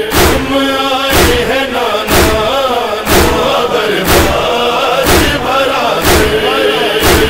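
Voices chanting together in a noha lament, kept to a steady beat of matam chest-beating: a heavy thud about once a second.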